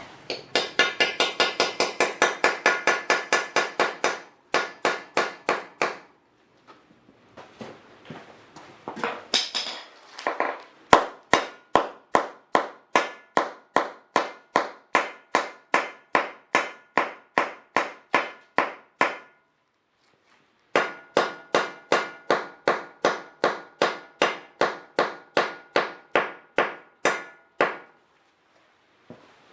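A hammer striking repeatedly in steady runs of about three to four blows a second, with short pauses between the runs.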